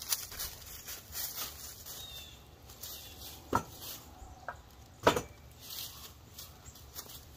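Pieces of firewood knocking together as they are handled: scattered light knocks and two louder ones, about three and a half and five seconds in. The chainsaw is not running.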